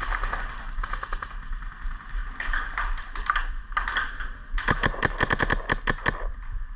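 Paintball markers firing: scattered clusters of sharp pops, then a rapid string of about ten shots in a second and a half in the second half.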